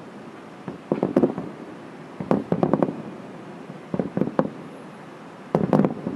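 Fireworks display: four volleys of rapid sharp bangs, about a second and a half apart.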